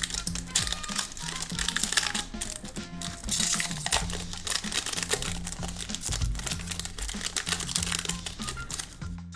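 Trading card pack wrapper crinkling and being torn open in irregular crackles as the cards are pulled out, over background music with a steady low bass line.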